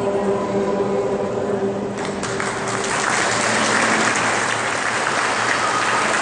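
A men's choir holds a final chord that dies away, and about two seconds in the audience starts applauding.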